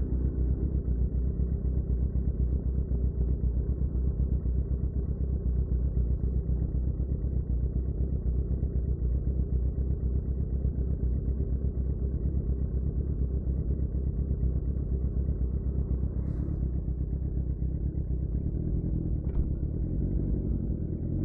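A 2007 Suzuki GSX-R600's inline-four engine running steadily through a Yoshimura R11 exhaust, a dull, muffled rumble that holds without revving up or down.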